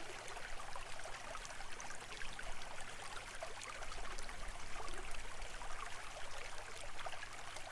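Running water trickling steadily, with many small splashes and bubbles.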